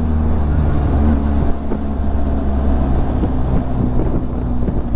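Vehicle engine running steadily with a deep hum, and road noise with irregular knocks and rattles.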